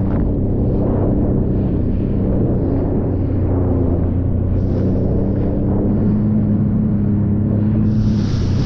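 Sea-Doo personal watercraft's engine running steadily at speed, its pitch rising slightly about six seconds in, under the rush of water and spray off the hull. Near the end a louder hiss of spray joins in.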